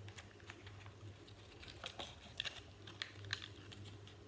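Folded paper being handled and pressed with the fingers: quiet, scattered crinkles and ticks as a glued paper strip is pressed onto a paper model, with a few sharper ticks about two to three seconds in.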